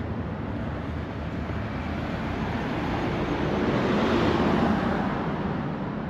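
A car driving past: tyre and engine noise swells to its loudest about four seconds in, then fades away.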